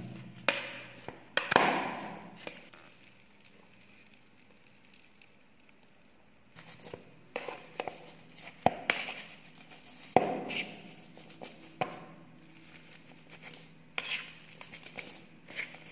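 Metal hand masher pressing boiled potatoes in a plastic bowl: irregular knocks of the masher against the bowl, with soft squashing. There is a few seconds' pause near the start, then a longer run of strokes.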